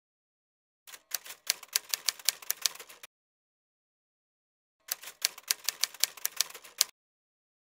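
Typewriter keys clacking in two quick runs of about two seconds each, with about two seconds of silence between them: a typing sound effect laid over on-screen text as it appears letter by letter.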